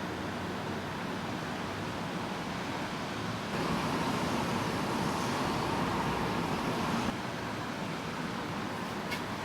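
Steady rain falling as an even hiss. It grows louder abruptly about a third of the way in and drops back just as suddenly a few seconds later.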